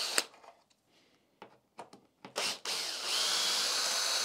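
A cordless drill-driver with a 5 mm hex bit backing out the screws that hold a motorcycle's display to its mount. A run stops just after the start. After a pause of about two seconds comes a short burst, then a steady run of about a second and a half.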